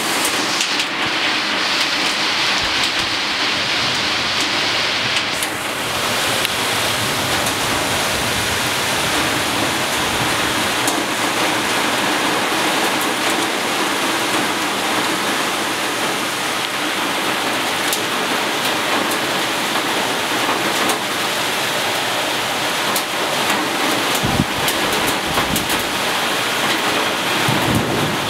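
Heavy rain pouring down steadily during a thunderstorm, an even hiss of rain on foliage and roofs. Near the end come a couple of brief low rumbles.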